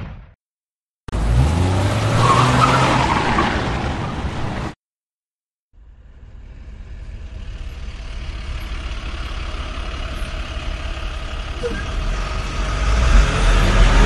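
Vehicle engine sounds in edited segments: about a second in, an engine revs up, rising in pitch, and runs loud for about three and a half seconds before cutting off abruptly. After a second of silence, a steady vehicle running noise with a low rumble fades in and grows louder.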